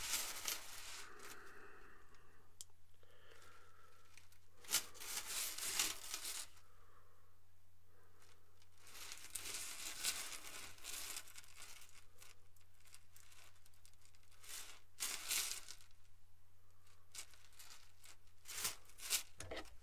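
Plastic bags of jump rings crinkling as they are handled, in several short spells, with small sharp clicks between them and a faint steady hum underneath.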